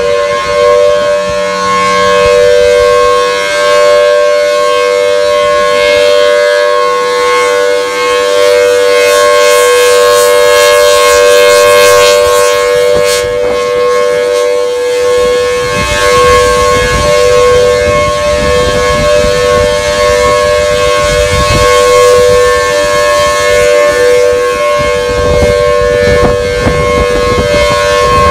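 Federal Signal Thunderbolt 1000BT outdoor warning siren sounding a loud, steady tone made of two pitches held together. From about halfway through, low wind and handling rumble on the microphone runs under it.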